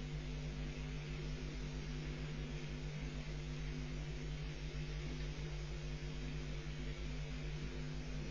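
Steady electrical hum with an even hiss over it, the constant background of the nest webcam's audio. No stork calls or bill-clattering stand out.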